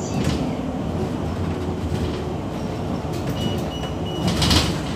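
Steady low running rumble heard from inside a moving city vehicle, with a short high beep in three quick pieces about three and a half seconds in and a brief hiss just before the end.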